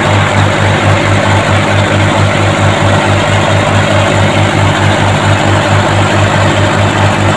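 Mitsubishi Colt Diesel four-cylinder truck engine, fitted as a fishing boat's inboard motor, running steadily with an even low throb.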